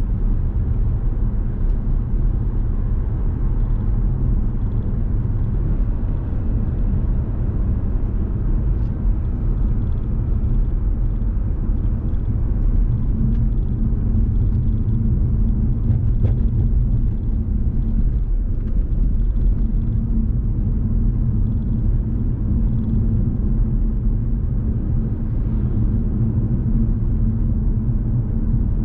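Car driving at a steady speed: a continuous low rumble of engine and tyre noise.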